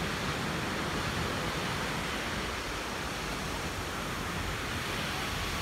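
Steady, even rush of ocean surf breaking on a sandy beach.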